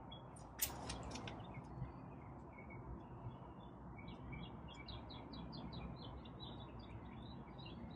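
Faint birds chirping, with a quick run of short chirps from about four to seven seconds in, over a low steady background hiss. A faint click comes just over half a second in.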